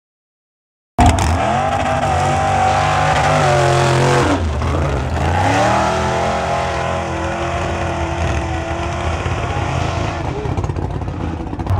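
A mud-bogging pickup truck's engine revving hard at high rpm as the truck churns through the mud pit. The revs drop briefly about three seconds after it starts, then climb again and hold. The first second is silent.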